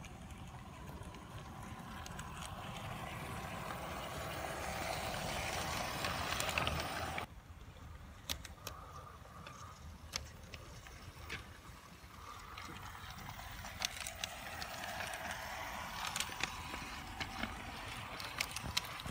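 LGB "Rusty" garden-railway model locomotive running on the track: a steady whirr from its motor and gears with sharp clicks from the wheels on the rails. It grows louder as the train approaches, drops off suddenly about seven seconds in, then carries on quieter with scattered clicks.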